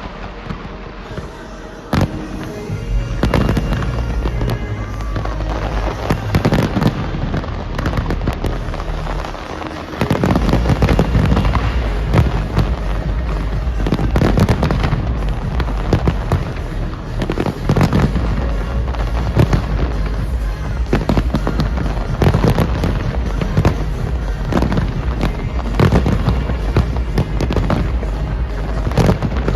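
Fireworks display bursting continuously: many sharp bangs and crackles in quick succession, over music with a steady bass. The bursts grow louder about two seconds in and again around ten seconds in.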